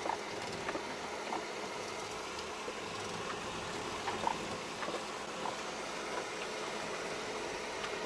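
Off-road car driving slowly along a rough, wet forest track: steady engine and tyre noise, with small knocks and rattles scattered through it.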